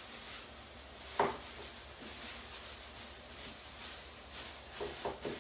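Light knocks of kitchen handling: one sharp knock about a second in, and a quick run of three or four knocks near the end, over a faint steady hiss.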